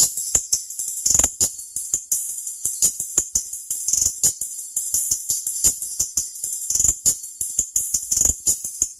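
Music played through a Power Acoustik NB-4 car tweeter on its own. Only the treble comes through: a thin, hissy stream of crisp percussion ticks in a quick steady rhythm, with almost no bass or midrange.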